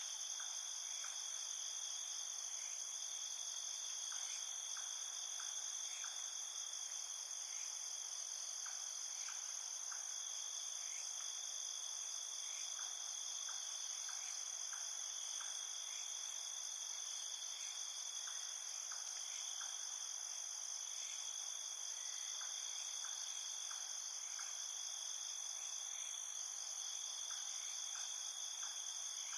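Night chorus of crickets and other insects, a steady high-pitched trilling. Fainter short chirps come in little groups of two to four every few seconds.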